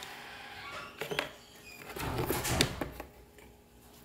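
Plastic screw cap of a small jar of craft paint being twisted open: a scraping rasp, then a few sharp clicks about a second in, and a louder cluster of clicks and knocks between two and three seconds in as the cap comes off and is handled.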